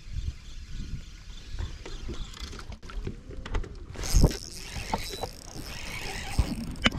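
Wind buffeting the microphone, with knocks and rustles of a spinning rod and reel being handled. About four seconds in comes a sharp knock as the rod is swept up in a hook set, followed by a hiss.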